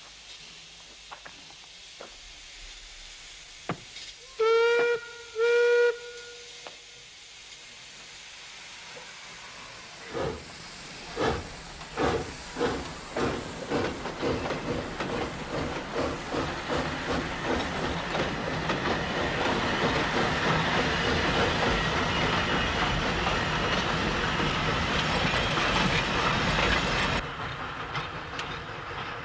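Steam locomotive whistle sounds two short blasts, then the engine starts pulling away: slow exhaust chuffs that quicken and grow louder into a steady rush as the train gathers speed, dropping away abruptly near the end.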